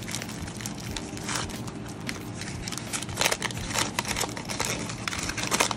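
Plastic packaging crinkling and rustling as it is handled, with a few louder crackles in the second half, over the steady hum of an air conditioner.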